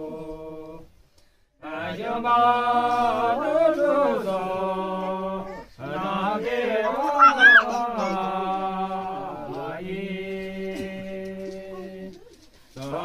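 Men singing an unaccompanied song in long, held, gliding phrases, pausing for breath about a second in and again near the end, with a brief high rising note about seven seconds in.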